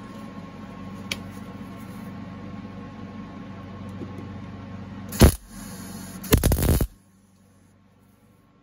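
Steady low hum, then two short crackling bursts of a MIG welder tack-welding a steel patch panel into a car's inner wheel well, about a second apart, the second one longer. The hum stops about seven seconds in.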